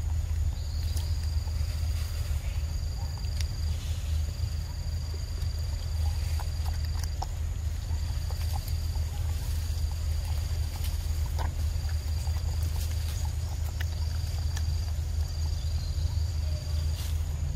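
A macaque biting and chewing a soft yellow fruit close by, with scattered sharp wet clicks and smacks, over a steady low rumble. Insects buzz high above it in repeated spells about a second long.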